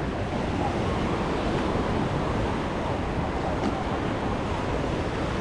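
Steady beach ambience: waves washing on the shore, with wind rumbling on the microphone.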